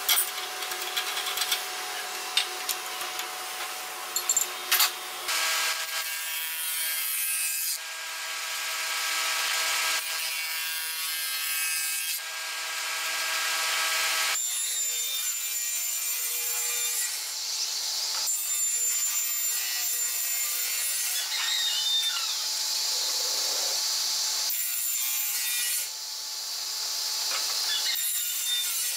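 A few sharp metal clinks as cutter knives and parts are handled on a spindle moulder's spindle, then woodworking machines running and cutting wood: a spindle moulder shaping a board and a sliding table saw crosscutting a board, a steady machine whine under the noise of the cut that changes abruptly several times.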